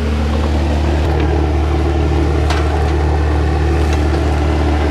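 A machine running nearby, giving off a steady low mechanical drone that holds one pitch, with a few faint clicks.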